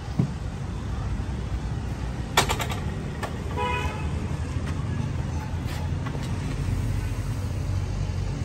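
A dirt bike's horn gives one short beep about three and a half seconds in, just after a brief rattle of clicks, over a steady low rumble.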